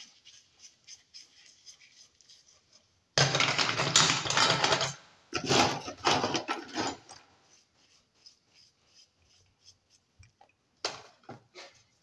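A stiff brush scrubbing greasy bicycle parts (chain and bearing cups) in a plastic tray, with the metal parts scraping and clinking against each other. There are two loud stretches of scrubbing a few seconds in, then lighter scraping and a few sharp clicks near the end.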